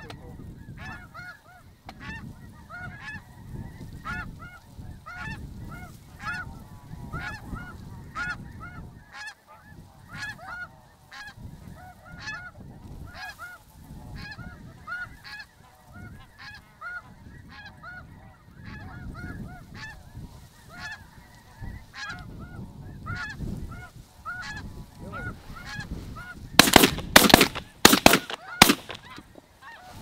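A flock of snow geese calling overhead: a steady chorus of short, high honks, several a second, with wind rumbling on the microphone. Near the end, four loud bangs in quick succession.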